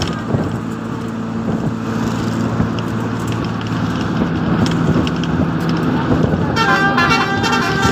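Steady drone of an engine, with a horn sounding for about a second and a half near the end.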